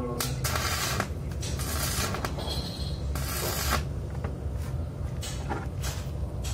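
Stick (MMA) arc welding on steel: the arc crackles and sizzles in several short bursts, with a steady low rumble underneath.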